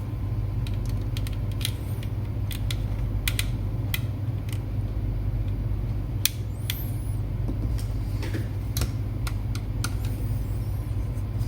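Scattered small clicks and taps of small metal laptop parts and tools being handled, over a steady low hum.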